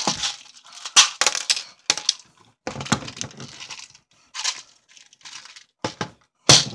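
Close handling noise from a plastic BB pistol being turned over and fingered right at the phone microphone: irregular clicks, knocks and rustling, the loudest about a second in and near the end.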